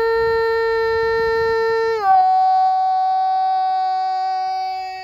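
A man's long, drawn-out shout of "Buenos días" through cupped hands, held on one steady pitch and dropping to a lower held note about two seconds in on the second word, then cut off sharply.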